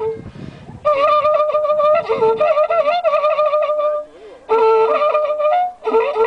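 Wakrapuku (wacrapuco), the Andean spiral trumpet made of joined cattle-horn sections, blown in three phrases of loud held notes with a wavering pitch, broken by short pauses for breath.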